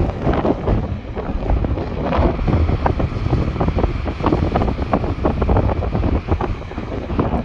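Sea waves breaking and washing on a beach, a steady rushing surf, with wind buffeting the microphone in a low rumble.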